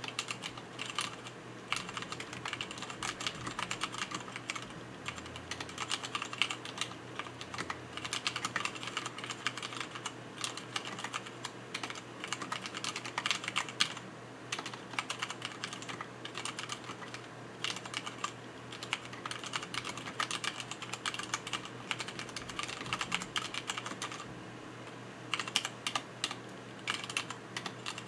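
Typing on a Hansung GO184 mechanical keyboard with Cherry MX Black linear switches and PBT keycaps: a steady stream of keystrokes, with a brief pause near the end.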